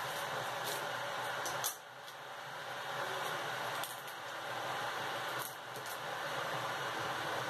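Tap water running steadily over cavolo nero leaves as they are rinsed by hand, the rush dipping briefly three times as the leaves are moved through the stream.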